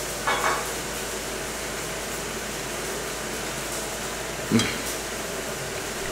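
A man eating from a bowl with cutlery, over a steady room hiss. There is a short scrape about half a second in, and a brief low hum like a satisfied "mm" about four and a half seconds in.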